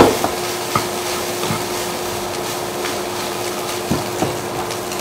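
Fried rice with choi sum sizzling in a non-stick wok as a plastic spatula stirs and tosses it, with a few knocks of the spatula against the pan.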